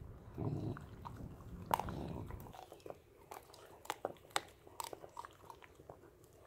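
Two puppies chewing whole frozen raw tilapia, irregular sharp crunches and cracks of teeth on frozen fish and bone. A low rumble underlies the first couple of seconds.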